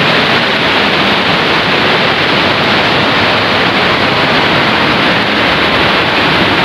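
Steady, loud rushing of flowing water, an even hiss-like noise with no breaks.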